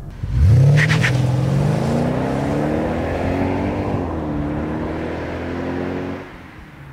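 Mercedes-Benz SL550's 5.5-litre V8 on its stock exhaust accelerating hard, the note rising steadily with one upshift about four seconds in, then falling away sharply near the end. A few short high chirps sound about a second in.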